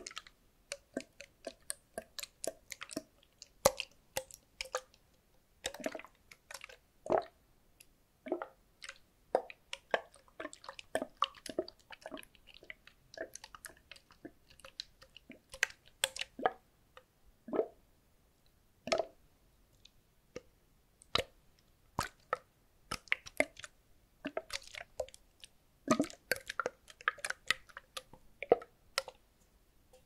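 Liquid sloshing inside a capped, partly filled clear plastic bottle as it is tilted back and forth close to the microphone. It makes irregular quick plops and gurgles, one to several a second, with a busier cluster near the end.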